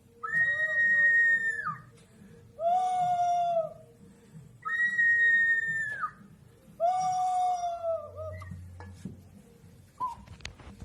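Four long, held, whistle-like animal-call imitations, each about a second and a half, alternating between a higher and a lower pitch. Each call drops slightly at its end.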